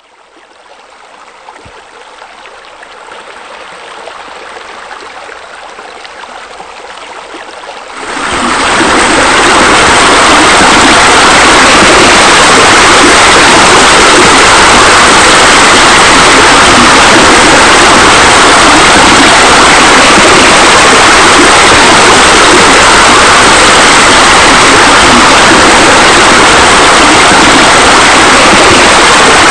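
Steady rushing, splashing water of pool fountains and a spa spillover. It swells in quietly, then jumps to full loudness about eight seconds in and stays steady.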